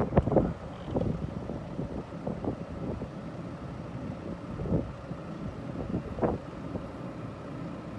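Strong wind buffeting the microphone: a steady low rumble with a few brief louder gusts.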